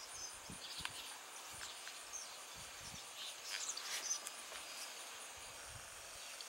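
Tree swallows in flight giving scattered faint, high chirps, a few together about four seconds in, over a steady high insect trill.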